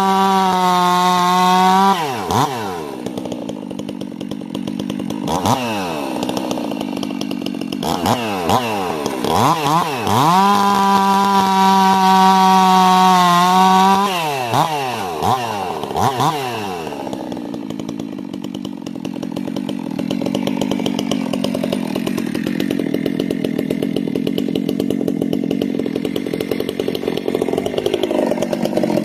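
Stihl MS 362 two-stroke chainsaw being run in on its second tank of break-in fuel: held at full throttle for about two seconds, dropped to idle and blipped a couple of times, held wide open again for about four seconds, blipped twice more, then left idling steadily for the last twelve seconds or so.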